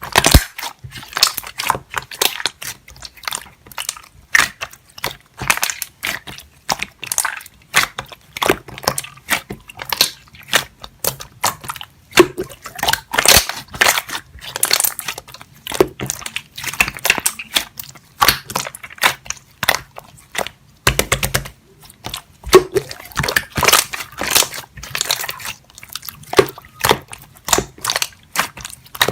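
Slime being squeezed and kneaded by hand: a dense, irregular run of sharp sticky clicks and pops.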